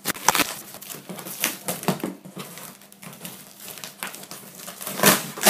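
Cardboard shipping box being cut and pried open: scissors working through the packing-tape seal, tape ripping and cardboard rustling in a string of irregular scrapes and rips, the loudest near the end.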